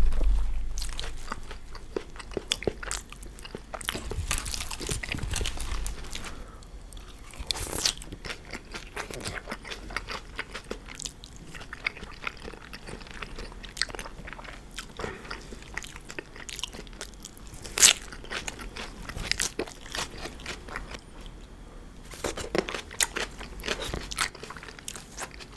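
Close-miked biting and chewing of crisp, fresh salad greens and raw vegetables: irregular wet crunches and crackles from the mouth. There is a low thump right at the start and one sharp click about two-thirds of the way through.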